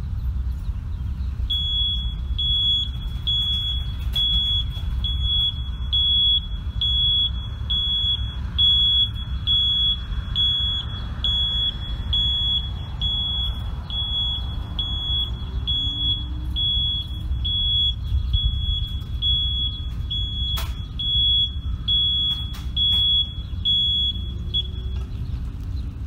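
School bus backup alarm beeping: a high, evenly spaced beep that starts a second or so in and stops near the end as the bus reverses, over a steady low rumble.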